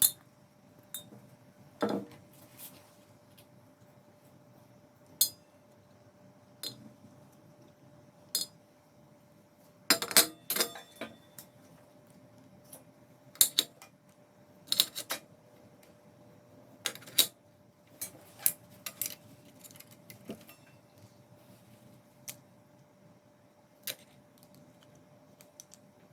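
Small metal parts and hand tools clinking and tapping as they are handled and set down during a repair: a string of sharp, irregular clinks, the loudest clusters in the middle, over a faint steady hum.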